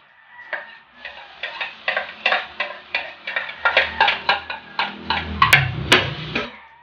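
A spoon tapping and scraping against a plate, knocking chopped garlic off into a hot wok, about three taps a second. Two sharp clicks come near the end.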